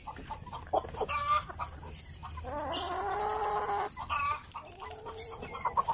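Kabir hens calling excitedly as they crowd to feed, a run of short calls with one longer drawn-out call from about two and a half to four seconds in.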